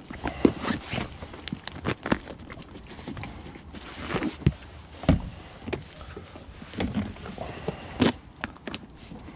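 Soft plastic goose decoys being handled: irregular knocks and clicks with plastic crinkling and rustling as the detachable heads are pushed onto the hollow bodies.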